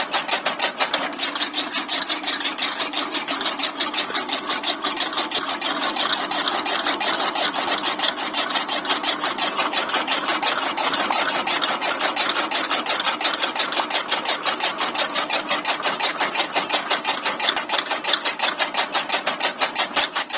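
Miniature belt-driven chaff cutter run by a small motor, whirring while its blades chop fed grass in a steady rapid pulse of about four to five strokes a second.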